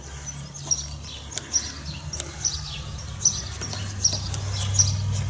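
A small bird chirping over and over, about two short high chirps a second, with a low hum that grows louder near the end.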